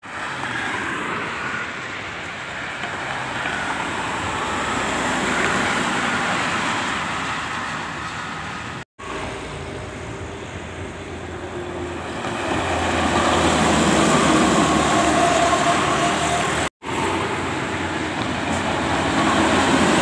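Highway traffic noise as an intercity coach and other vehicles approach and pass on the road. It swells to its loudest about two-thirds of the way through and again at the end as the coach goes by close. The sound drops out abruptly twice at edit cuts.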